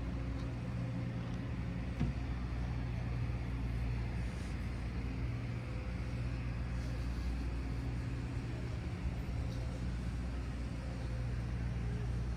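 Steady low drone of city traffic and engines, with a constant hum and a faint outdoor wash over it; a single small click comes about two seconds in.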